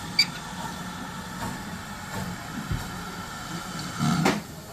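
Steam railway yard sound of a GWR 5101 Class 2-6-2 prairie tank engine moving slowly toward the water column: a steady low rumble, a sharp click just after the start, and a louder short burst about four seconds in.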